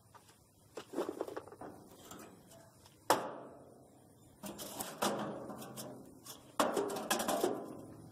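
Metal gas-grill cooking grates clanking and rattling as they are set back into place on the grill frame over lava rocks, in four clattering bursts that each ring out. The sharpest clank comes about three seconds in.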